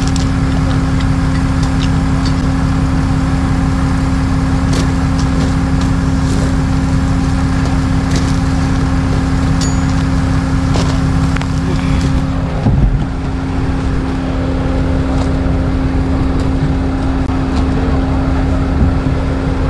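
Truck engine running steadily with a constant hum, over scattered clicks and knocks. A heavier thump comes about thirteen seconds in, and the engine sound dips briefly after it.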